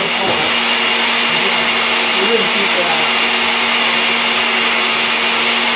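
Electric kitchen blender running steadily at constant speed, blending plantain and cassava into fufu.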